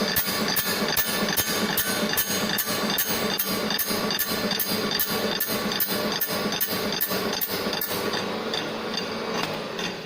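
GD 450Q circular saw blade sharpening grinder running automatically, its grinding wheel chamfering alternate teeth with an even stroke about three times a second. The strokes die away about eight seconds in.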